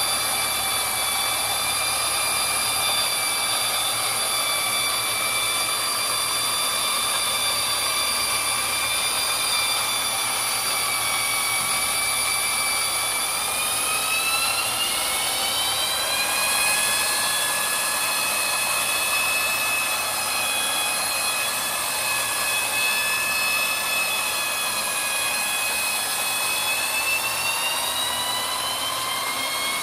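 Treadmill motor whining steadily under the moving belt. Its pitch rises in a smooth glide about halfway through and again near the end as the belt speeds up.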